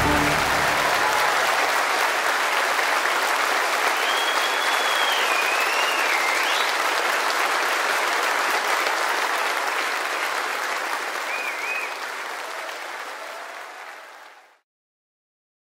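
A crowd applauding, with a wavering whistle over it a few seconds in and a short one later. The applause fades out and stops near the end.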